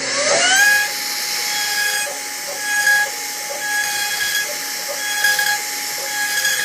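A machine motor winding up with a rising whine at the start, then running at a steady pitch with a repeating cycle about every second and a quarter.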